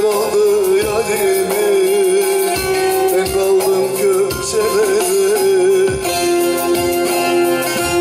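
Male voice singing a Turkish folk song (türkü) in a wavering, ornamented line over a bağlama (long-necked saz) being plucked. The voice stops about six seconds in and the bağlama plays on alone.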